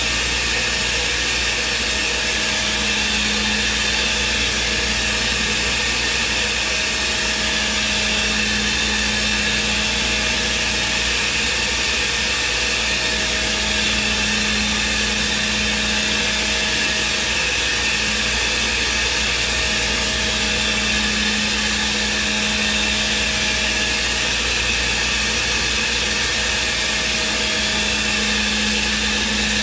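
Thermwood CNC router running: steady spindle whine and hiss, with a low hum that swells and fades every few seconds.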